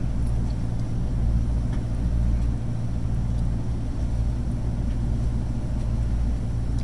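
Motor cruiser's engine running steadily under way, a low even drone.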